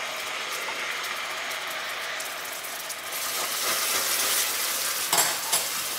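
Hot caramel bubbling and sizzling in a saucepan as liquid cream is stirred into it with a spatula, getting louder about halfway through, with a couple of sharp knocks against the pan near the end.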